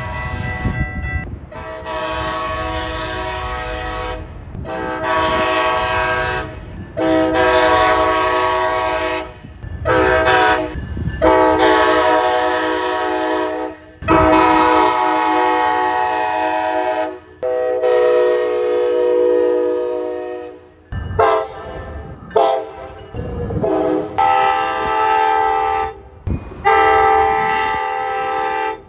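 Tri-Rail commuter train horns sounding a long series of blasts, mostly long ones with a few short toots, each a chord of several tones, with abrupt breaks between them. A low rumble of the train runs beneath the blasts in the first half.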